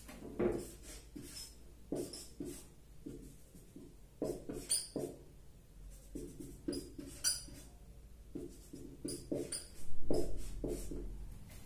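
Whiteboard marker squeaking against the board in a series of short strokes as small squares are drawn, over a faint low hum.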